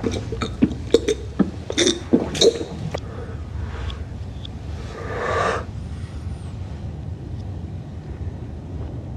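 A man gulping milk from a bottle: a quick run of swallowing and mouth sounds over the first three seconds, then a short breath about five seconds in, over a low steady hum.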